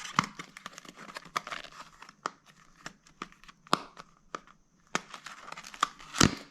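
Packaging being handled while unboxing a charger: plastic crinkling and rustling, with scattered clicks and taps of the box and parts, and a sharper knock near the end.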